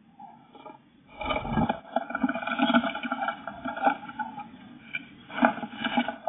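Blue tit dropping into a wooden nest box, landing with a thud about a second in, then wings flapping and feet scrabbling and scraping on the bare wooden floor, with another flurry of scrabbling near the end.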